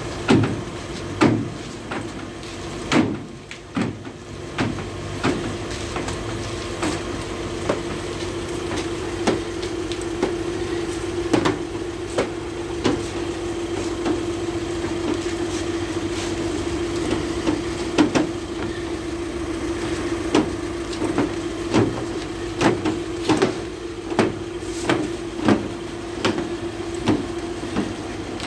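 Hose-fed jet wash foam brush scrubbing a van's side panels, over a steady machine hum, with frequent short, sharp knocks.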